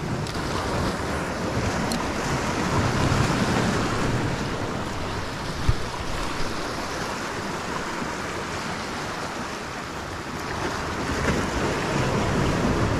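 Small sea waves washing and breaking over the rocks of a jetty, swelling a couple of times, with wind buffeting the microphone and one short knock about halfway through.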